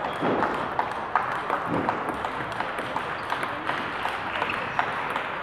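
Table tennis balls clicking off bats and tables from several matches at once, in irregular sharp ticks over a steady background of hall noise.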